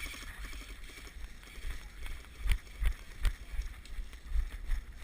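Footsteps of a person running over rough ground: uneven thuds with sharp knocks and clicks, getting heavier about halfway through.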